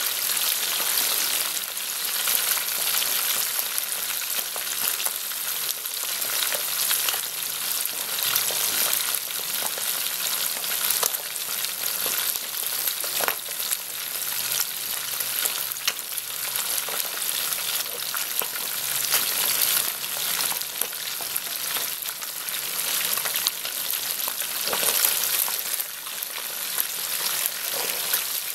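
Two whole fish deep-frying in hot oil in a wok: a steady sizzling hiss thick with small pops and crackles.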